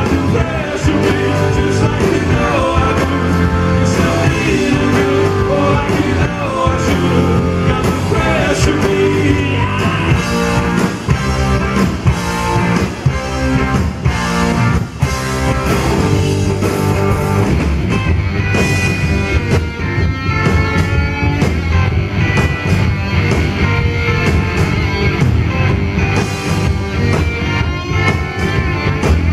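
Live rock band playing electric guitars over a steady drum beat, with a man singing.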